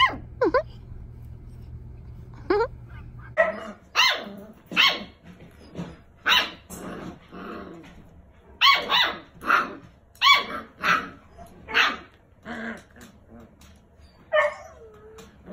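Six-week-old puppies barking in a string of short, high yips, one every half second to a second. A few quick squeaks come in the first couple of seconds, and a drawn-out falling whine comes near the end.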